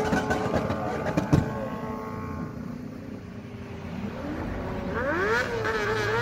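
Supercar engines revving in passing expressway traffic, with a single sharp pop just over a second in. From about five seconds in the pitch climbs and falls in several quick sweeps, over the steady rush of traffic.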